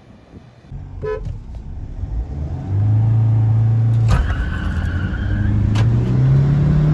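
Mahindra Scorpio's 2.2-litre diesel engine accelerating hard from a standing start. The revs build, there is a gear change about four seconds in, and then the note climbs again.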